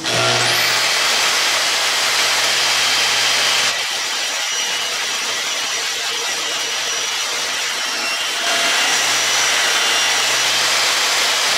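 Portable band saw in a bench stand running and cutting through a factory rear shock part, a loud steady whir. The level dips and the low hum drops out from about four to eight and a half seconds in.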